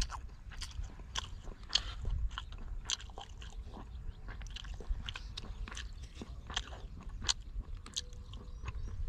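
Irregular, close-up crunching and clicking, several sharp crackles a second, over a low rumble.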